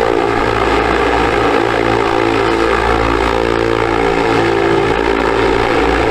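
Small electric DC motor spinning a propeller, a steady whine with airy propeller wash.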